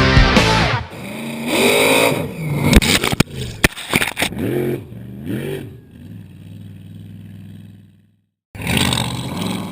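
Mega truck engine revving in repeated bursts that rise and fall in pitch, with several sharp cracks in the middle, then settling to a steady idle that fades away; after a brief cut, another rev near the end.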